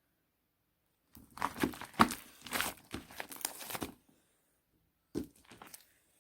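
Crinkling and rustling handling noise, a dense run of about three seconds followed by a shorter burst near the end.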